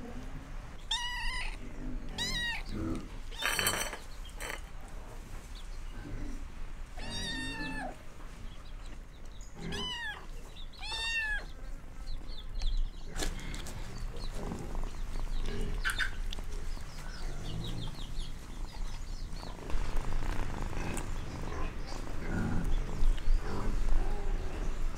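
A kitten meowing: about five short, high calls, each rising then falling in pitch, spread over the first half, with a brief rustling noise between the early calls.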